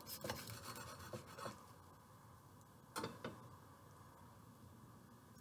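A chef's knife sawing through a toasted-bread sandwich: a quiet raspy scraping of the blade through the crust for about the first second and a half, then one short scrape about three seconds in.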